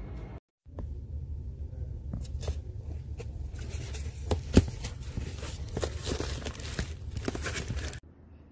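Packaging being handled in an opened cardboard box: plastic wrapping crinkling with many sharp clicks and knocks over a low handling rumble, the loudest knock about four and a half seconds in. It stops abruptly near the end.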